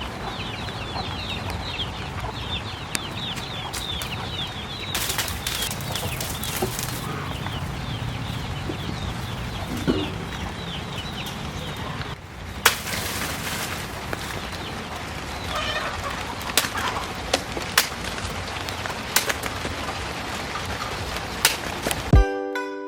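Birds chirping with clucking fowl, over a steady background, with a few scattered sharp knocks in the second half. Music starts right at the end.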